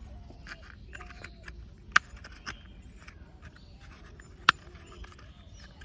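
Hard plastic toy auto-rickshaw parts being handled and pressed together: light rubbing and tapping of plastic, with two sharp clicks, one about two seconds in and another about four and a half seconds in.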